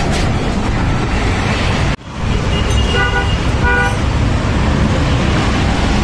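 Road traffic noise, with a vehicle horn tooting twice in short blasts about three seconds in.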